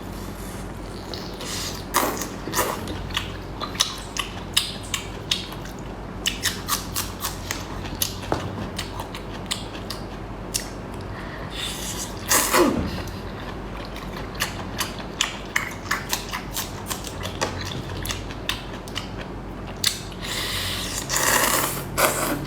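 Close-miked eating sounds: rapid irregular mouth clicks, smacks and chewing, with louder bursts of slurping or crunching about twelve seconds in and near the end.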